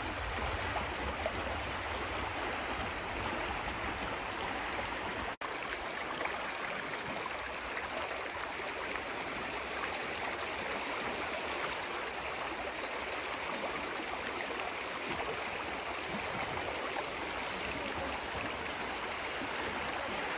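Creek water rushing steadily over shallow riffles, broken by a brief dropout about five seconds in.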